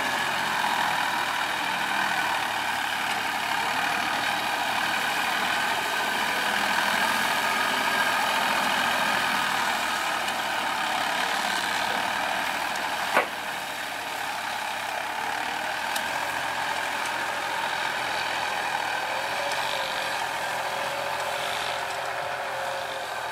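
Farm tractor's diesel engine running steadily under load as it pulls a plough through dry field soil, with a single sharp click about halfway through.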